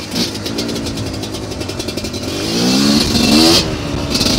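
2019 GPXMoto TSE250R two-stroke dirt bike engine, fitted with a Gen 3 pipe, running under way on a trail. The revs climb about halfway through, ease off briefly near the end, then pick up again.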